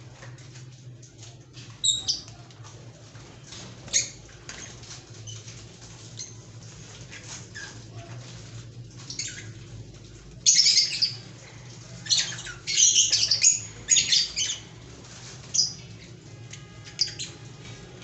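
Caged lovebirds calling in short, shrill chirps and squawks that come in scattered bursts, busiest about ten to fifteen seconds in, over a low steady hum.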